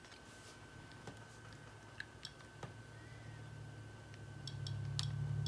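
A few faint, irregular ticks from an iPod Classic's click-wheel clicker as the wheel is turned, over a faint steady high whine. A low hum rises about four seconds in.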